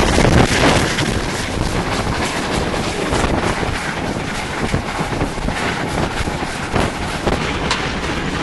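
Steam locomotive under way, heard from its cab: wind rushing over the microphone, with loud clatter and sharp knocks throughout, loudest about the first second.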